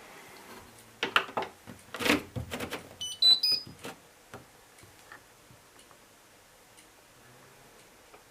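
Clicks and knocks from handling a Hotpoint washing machine's controls, then three short electronic beeps rising in pitch from its control panel as the programme is set.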